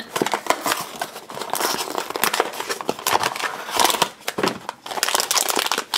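Cardboard blind-box packaging being handled and opened by hand: a dense run of crinkling, rustling and small clicks.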